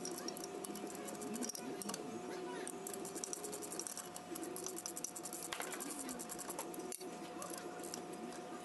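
Light metallic clicks and rattles of limited-slip differential gears and parts being handled and seated inside an EZGO golf cart's rear axle housing, over a faint steady hum.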